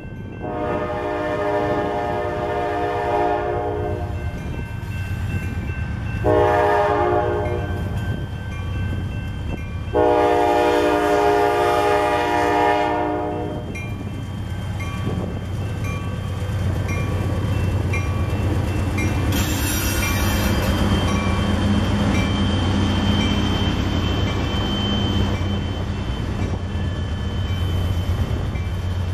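A Norfolk Southern freight's lead Dash-9 diesel locomotive sounds its multi-tone air horn for a grade crossing: a long blast, a short one, then another long one. The two Dash-9s then pass close by under throttle with a heavy, steady engine rumble, followed by the rumble and clatter of freight car wheels on the rails. A crossing bell dings faintly and steadily throughout.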